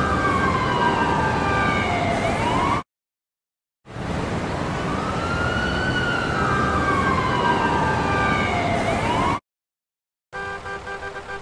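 Emergency-vehicle siren sound effects in three short clips, each cut off abruptly by a pause. First a wailing siren sweeps down and starts back up, with a steady tone over it. Then a second wail rises and falls for about five seconds. Near the end comes a rapidly pulsing steady tone.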